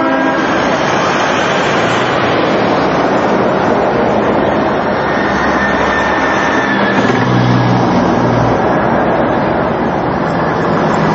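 Semi-trailer trucks hauling race-team transporters driving past, their diesel engines running with a steady rush of road and traffic noise. A horn blast ends just at the start, and a low engine drone swells as one truck passes close about halfway through.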